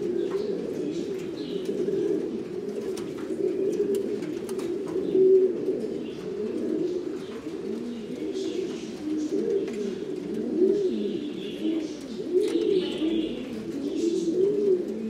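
Buchón Gaditano pouter pigeons cooing, several birds at once, their low rising-and-falling coos overlapping without a break. Faint higher chirps come in now and then.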